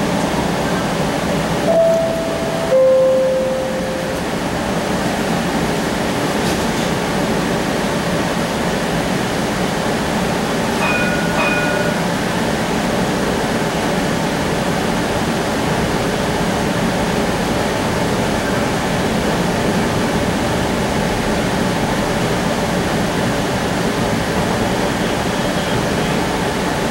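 Cincinnati Bell Connector streetcar running, a steady rumble and hum heard from inside the car. About two seconds in a two-note falling chime sounds, and about eleven seconds in two short high beeps.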